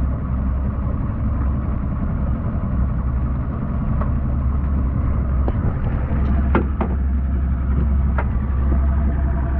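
Boat engine running steadily at trolling speed, a constant low rumble. A few sharp knocks and clicks come in the second half.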